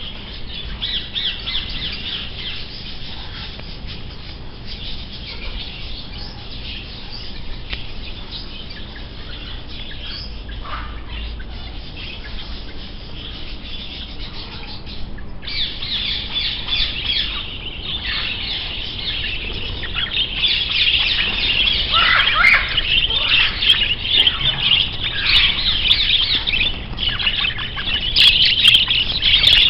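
Many small birds chirping and twittering at once in a dense, continuous chorus. It steps up suddenly about halfway through and is louder and busier in the second half.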